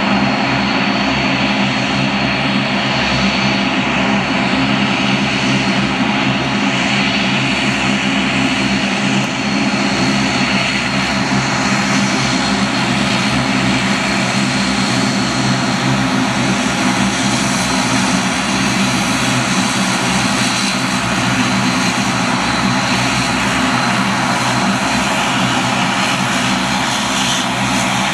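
Bombardier Dash 8 Q400's twin turboprop engines running steadily while the aircraft taxis past at close range: a steady low propeller drone with a thin high whine above it.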